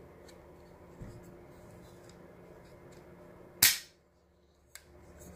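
AR-15 upper and lower receivers being handled and fitted together: a soft knock about a second in, then one sharp, loud click that rings briefly, and a smaller click near the end.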